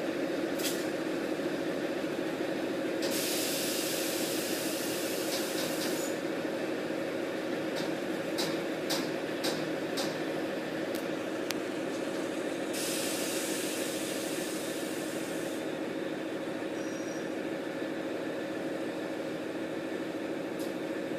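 WDS6 diesel shunting locomotive idling with a steady engine drone. Air hisses loudly twice, each time for about three seconds, about three and thirteen seconds in. A few sharp clicks come between the hisses.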